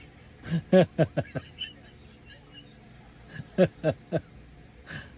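Sleep snoring in short quick snorts: a run of four about half a second in, then three more around the four-second mark, each snort falling slightly in pitch.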